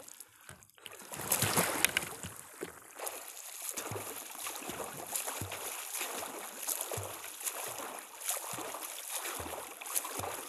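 A swimmer pushing off into lake water with a loud splash about a second in, then swimming away with rhythmic splashing of his strokes, roughly one splash a second.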